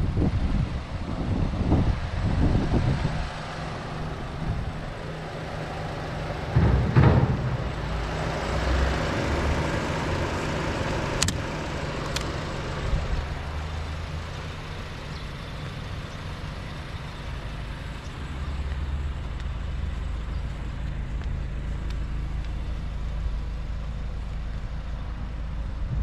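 2022 Audi A3 35 TFSI's 1.5-litre turbocharged four-cylinder idling steadily, heard from outside the car. Wind gusts on the microphone in the first few seconds and again about seven seconds in, and two short clicks come about eleven seconds in.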